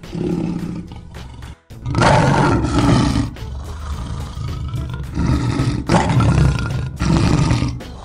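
Male lion roaring: a call at the start, a short break, then a series of four loud roars, each about a second long.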